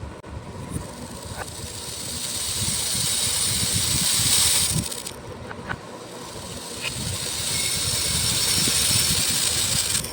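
Beads being poured in a continuous rattling stream, in two pours: the first builds up and stops suddenly about five seconds in, then a second starts and grows louder.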